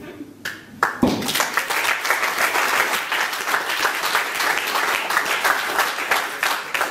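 A thump about a second in, then a room of people applauding, easing off near the end.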